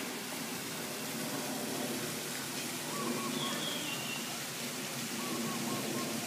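Steady outdoor background hiss, even and unbroken, with a few faint high chirps about three seconds in.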